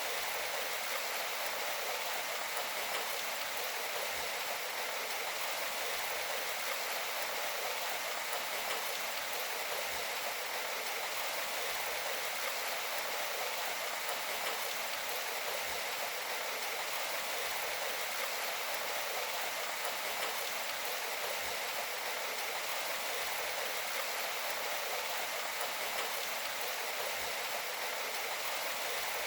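Steady rain falling, an even hiss with almost no low rumble.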